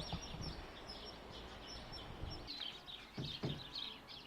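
Small birds chirping and twittering over a low outdoor rumble, with two dull knocks a little after three seconds in.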